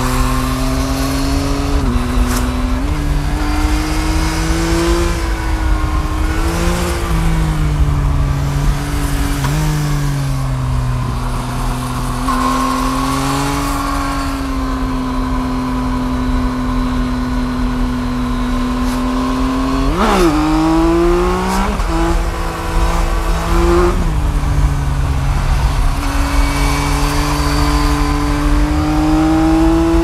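2021 Yamaha MT-09's three-cylinder engine under way, its pitch rising, falling and stepping with throttle and gear changes. It holds a long steady cruise, gives a quick sharp rev about twenty seconds in, and climbs again near the end. A low wind rumble runs on the microphone underneath.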